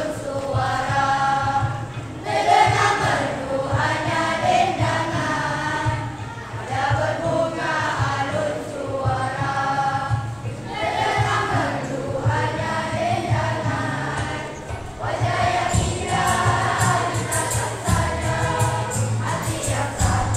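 Children's school choir singing together in phrases over backing music with a steady low beat. A brighter, shimmering percussion joins in the last few seconds.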